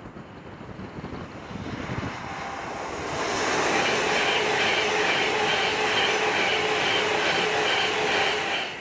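Class 390 Pendolino electric express train passing at speed. The sound grows, then from about three seconds in holds loud and steady: a rush of wheels on rail with a steady whine. It stops abruptly near the end.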